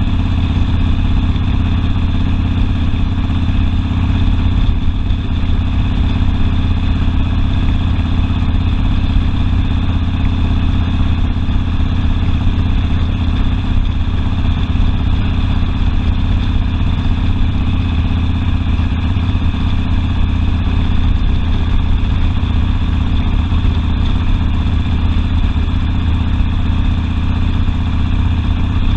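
Harley-Davidson Sportster's V-twin engine running steadily at an even pitch, with no revving up or down.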